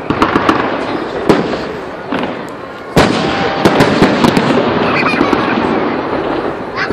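Aerial fireworks shells bursting in quick succession: a string of sharp bangs, the loudest about three seconds in, with continuous noise between them.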